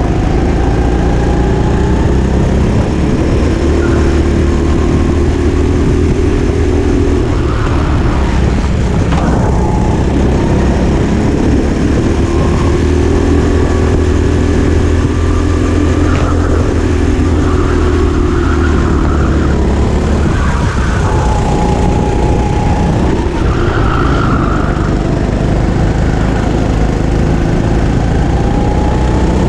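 Kart engine heard from on board under racing load, its revs rising along the straights and dropping off into the corners several times, over a heavy low rumble.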